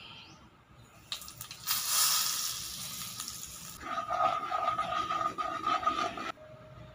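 Spice powders sizzling loudly in hot oil in a non-stick pan. A spatula then stirs the frothing oil, and the sizzle pulses about three times a second before cutting off suddenly.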